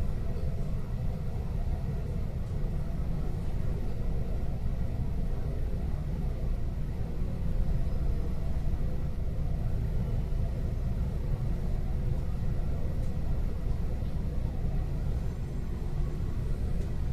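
Steady low rumble inside an electric commuter train's passenger car while the train stands held at a stop signal.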